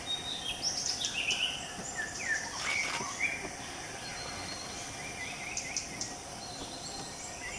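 Forest birds calling in short chirps and quick whistles over a steady insect hum, with the busiest calling in the first half.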